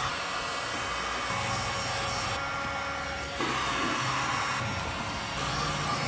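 Electric heat gun running steadily, blowing hot air to soften the adhesive of a car door's plastic weather seal so it can be pressed back on. Its airy rush changes in tone twice.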